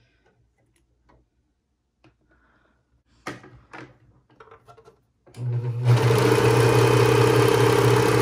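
A few light handling clicks, then a Brother 1634DX serger starts up about five seconds in, speeds up within half a second and runs steadily at full speed.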